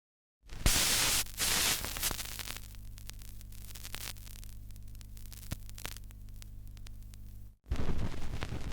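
Television interference static. It starts with two loud bursts of hiss, then settles into quieter crackling static over a steady electrical hum. Near the end it cuts out for a moment and a rougher, crackling burst of static begins.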